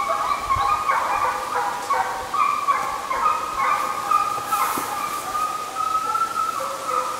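Russian hounds in full cry: several hound voices baying and yelping at once, overlapping long drawn-out notes and shorter yelps. This is the hounds giving tongue while running a hare's scent trail.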